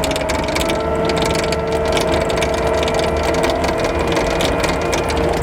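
Crane machinery running: a steady whine that sags slightly in pitch, over a rapid mechanical clatter.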